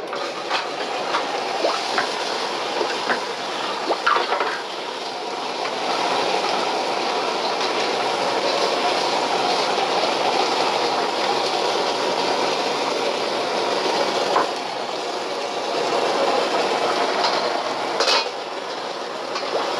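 Bamboo wok brush scrubbing and swishing water around a wok set on a lit commercial gas wok burner, which runs under it as a steady rushing noise. The scrubbing is heavier in two stretches, with scattered clinks of metal.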